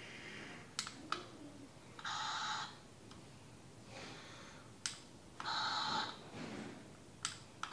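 Yakbot electronic toy robot giving short buzzy electronic noises, each lasting well under a second: twice, with a third just starting at the end. Sharp clicks from the toy being handled come a moment before each noise.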